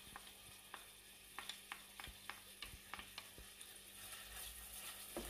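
Meat and diced onion frying faintly in hot oil in a stainless steel pot, with a run of light clicks and knocks through the middle as the onion is tipped in and stirred with a wooden spoon.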